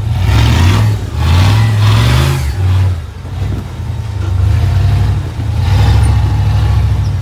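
Rock-crawling buggy's engine revving loudly in repeated bursts, about four, with short drops between, as it climbs a steep rock ledge under load.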